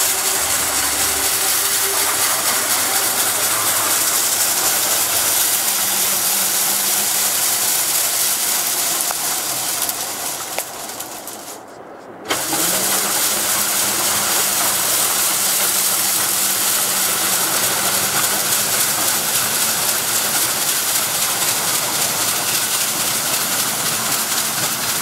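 Beaver Valley Traction electric trolley snow sweeper running along the track, its rotating brooms throwing snow off the rails with a steady rushing hiss over a low motor hum. The sound dips for a couple of seconds about halfway through, then returns at full strength.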